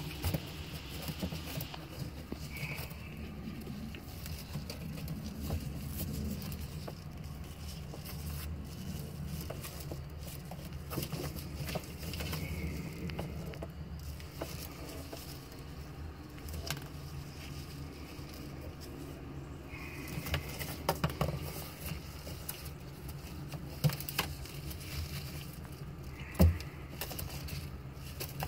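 Handling noise of plastic zip ties being wrapped and pulled tight around a jet ski's thrust cable housing by a gloved hand: scattered clicks, rustling and a few short rasps as ties are drawn through. A steady low hum runs underneath.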